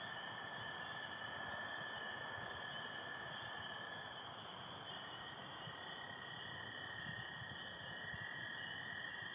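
A chorus of spring peepers calling steadily, with American toads trilling underneath: one long, even trill that ends about four seconds in, and another that starts about a second later and carries on.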